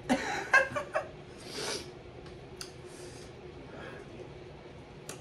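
A woman's short, wordless mouth sounds, then a sharp hiss of breath about a second and a half in, followed by faint mouth clicks.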